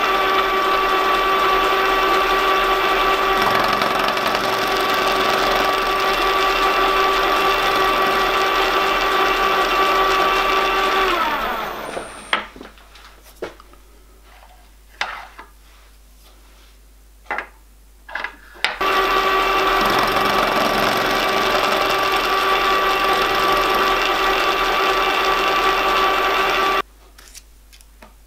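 Milling machine spindle running with a steady whine as a small end mill works a pin held in a collet block. About eleven seconds in it winds down, and a few light clicks follow as the collet block is turned by hand. The spindle then runs again and cuts off sharply near the end.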